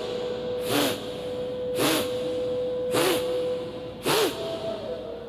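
Kapalbhati pranayama breathing: four sharp, forceful exhalations through the nose, about one a second, each a short hissing blast. It is a demonstration of a wrong way of doing the practice.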